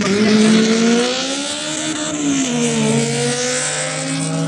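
Two drag-race hatchback engines revving on the start line, held at high revs with the pitch wandering up and down just before launch.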